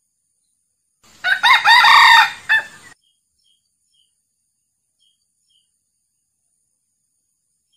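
Male red junglefowl crowing once: a short crow of about two seconds, ending in a brief separate final note.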